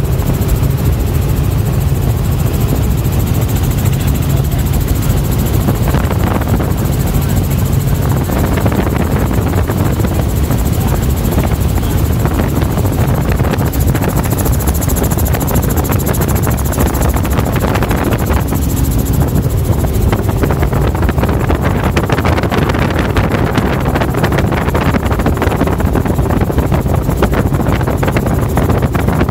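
Helicopter in flight heard from inside the cabin with the doors off: a loud, steady drone of rotor and engine mixed with rushing wind.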